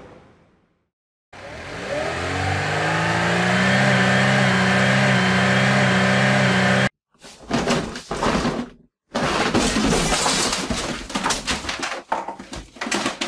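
Car engine sound effect revving up, its pitch rising and then holding steady at high revs before cutting off abruptly about seven seconds in. A run of loud, ragged noisy bursts and knocks follows.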